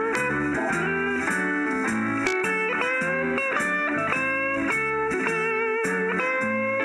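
Instrumental music led by guitar with notes sliding into pitch, over bass and a steady drum beat.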